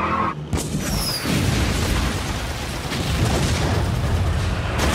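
Explosions in a film action-scene soundtrack: a sudden blast about half a second in, then a continuous heavy low rumble.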